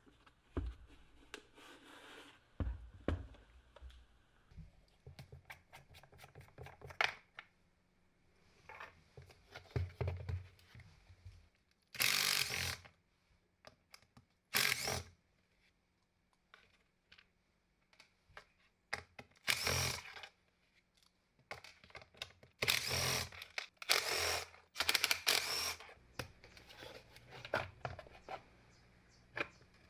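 Handheld power tool, likely a drill/driver, run in about six short bursts of roughly a second each, with clicks and handling noises of parts and tools between them.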